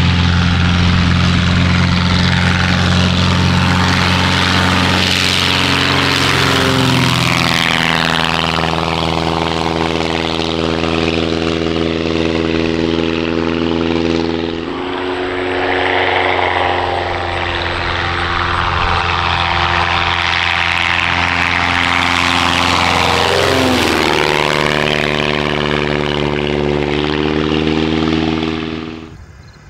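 Avid Flyer light kit plane's engine and propeller running at high power, a loud steady drone. Its pitch drops as the plane passes by, about a quarter of the way in and again near the end. The sound then falls away sharply.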